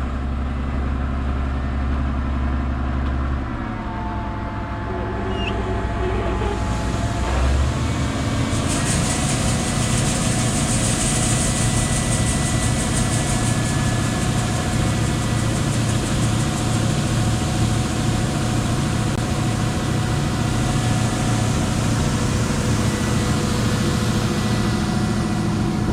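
John Deere 6600 combine's engine running steadily. About eight seconds in, a loud rushing hiss joins it and holds, as the machinery runs up.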